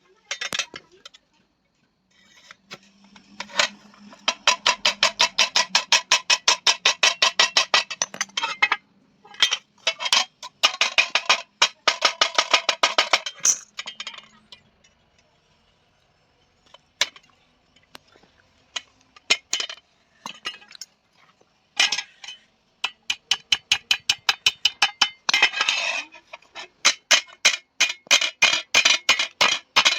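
Hand hammer beating a thin iron tawa plate, each blow ringing like struck sheet metal. The blows come in fast runs of several a second, with scattered single strikes and a lull in between.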